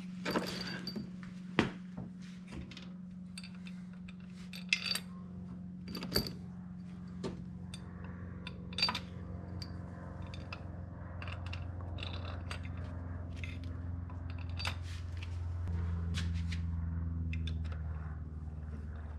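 Metal bolts clinking and scraping as they are handled and started by hand into a snowmobile's cylinder head: a dozen or so short, sharp clinks at irregular intervals. A steady low hum runs underneath.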